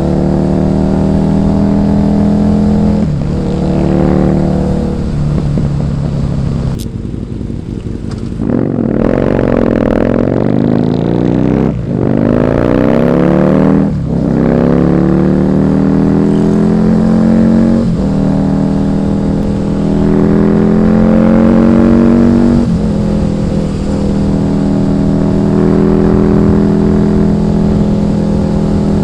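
Husqvarna Nuda 900R's parallel-twin engine under way, rising in pitch under throttle and dropping back at each gear change, several times over. About seven seconds in it eases off briefly, then pulls up through the revs again.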